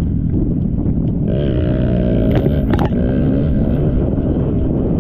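Motocross bike engines running hard under racing load, with one engine note rising and then falling again about halfway through, and two sharp clicks near that peak.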